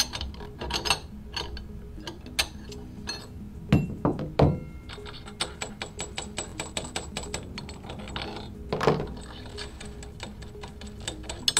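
Steel hex nuts being loosened and turned off the bolts of a pipe flange by hand: scattered metallic clicks and knocks, with a run of quick rattling clicks in the middle, over faint background music.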